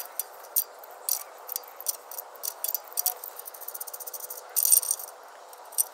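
Socket wrench clicking and metal clinking while two 12 mm nuts on an exhaust bracket are worked loose: irregular sharp clicks throughout, with a brief burst of rattling about four and a half seconds in.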